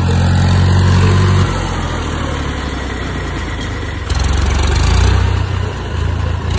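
Tractor's diesel engine running steadily as it pulls a cultivator. It drops in loudness about a second and a half in and swells again about four seconds in.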